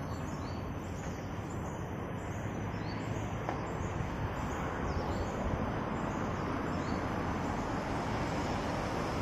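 Steady outdoor background noise, a low rumble and hiss, with faint high bird chirps repeating through it.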